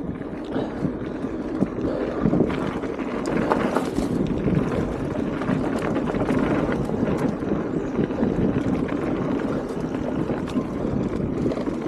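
Mountain bike riding down a dirt trail: steady wind rush on the microphone with tyre noise and small irregular rattles and ticks from the bike.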